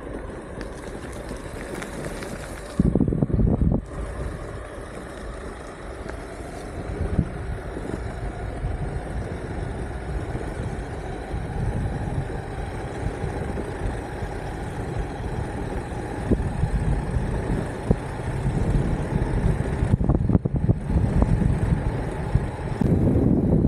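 Electric skateboard rolling along a road, with wind rumbling on the microphone; the wind rumble gets louder briefly about three seconds in and again near the end.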